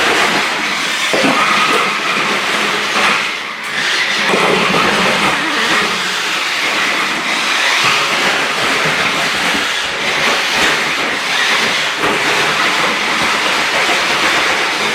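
A 1/8-scale remote-control Jeep Wrangler toy driving, its electric motor and gears making a steady whir, with a short dip about three and a half seconds in.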